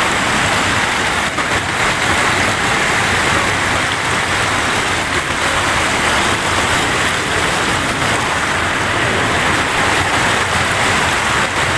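Steady loud rush of river water flowing fast over rocks and a weir.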